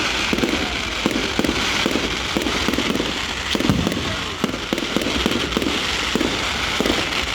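Firework display: a rapid run of bangs and crackles from aerial fireworks, many sharp reports close together over a steady crackling hiss.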